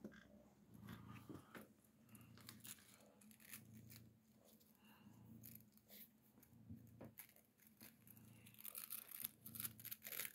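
Domestic cat purring softly in a slow in-and-out rhythm while kneading a fleece blanket, with faint crackling and scratching from its claws and mouth working the fabric; the crackling grows busier near the end.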